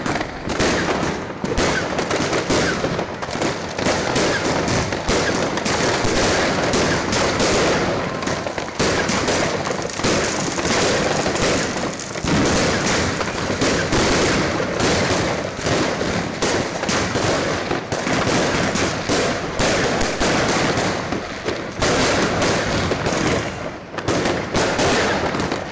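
Fireworks going off all around: a dense, unbroken crackle of many pops and bangs overlapping one another.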